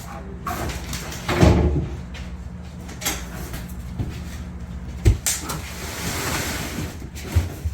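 Knocks and bumps of a wooden kitchen corner cabinet being handled and pushed into place, the heaviest thump about a second and a half in, with a longer scraping slide near the end.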